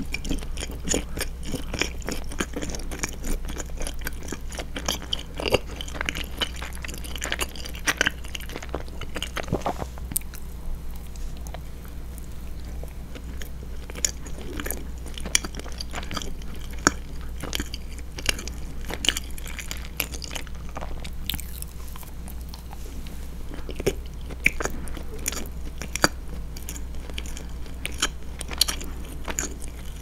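Close-miked chewing of a chocolate-coated fondant chocolat cake: a steady run of moist mouth clicks and smacks, with the odd sharper bite.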